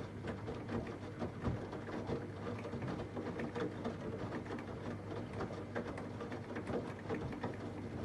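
Samsung WD90K6B10OW washer-dryer running partway through a wash: a steady low hum with irregular light clicks and knocks.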